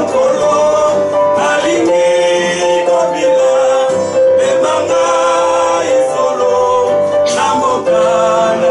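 A man singing in long held notes while strumming an acoustic guitar.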